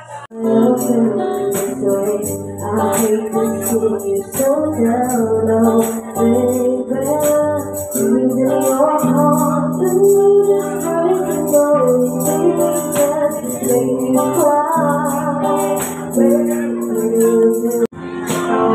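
A song with singing played loud over a PA speaker system, with a steady high shaker-like beat. The sound drops out briefly near the end.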